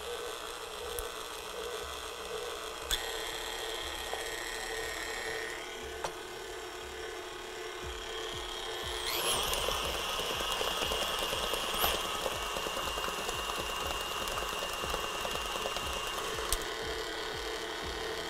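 KitchenAid Ultra Power tilt-head stand mixer running, its beater turning through a creamy cheesecake filling in a steel bowl with a steady motor whine. About nine seconds in the whine rises in pitch and the mixer gets louder.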